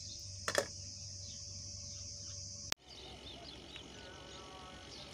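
Insects buzzing steadily at a high pitch, with one brief sharp noise about half a second in. Nearly three seconds in the buzzing cuts off abruptly and gives way to quieter open-air ambience with scattered bird chirps.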